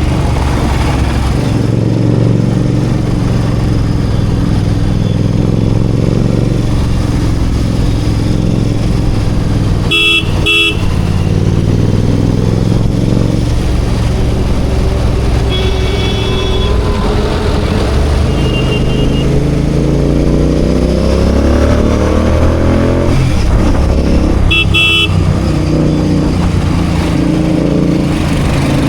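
Royal Enfield Continental GT 650's parallel-twin engine running in city traffic, its pitch rising as it revs up about two-thirds of the way through. Vehicle horns honk: a quick double beep about a third of the way in, a longer honk a little later, and another double beep near the end.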